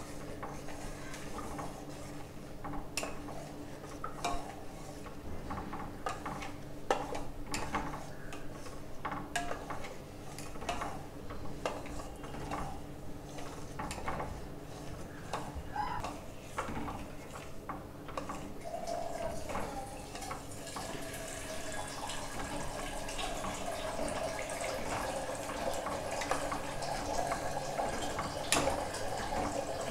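A steel ladle stirs and scrapes a thin rice-flour batter in a steel pot, clinking often against the pot's sides and bottom, under a steady low hum. The batter is being stirred constantly on a low flame as it cooks into koozh, so that it does not stick or go lumpy. From about twenty seconds in, a steady background noise grows louder.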